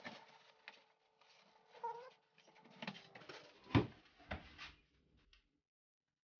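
A case of bottled water set down on freshly glued foam boat layers as a weight: a heavy thump a little under four seconds in, with a second knock just after. Before it, rustling and a couple of short squeaks over a steady hum.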